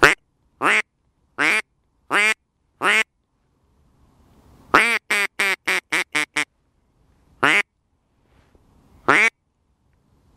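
Duck call (mallard-type quack call) blown in loud quacks: five evenly spaced single quacks, then a long quack followed by a quickening run of about seven shorter ones, then two more single quacks.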